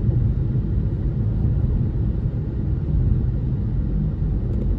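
Steady low rumble of a car driving along, heard from inside the cabin.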